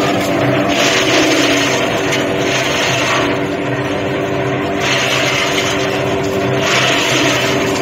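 Tractor engine running steadily under load, driving a cotton-stalk shredder, with a rushing shredding noise that swells about every two seconds.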